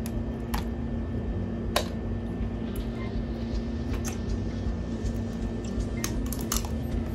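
Shrimp and crab shells cracking and being peeled by hand, heard as scattered sharp clicks and cracks, the loudest a little under two seconds in, over a steady low hum.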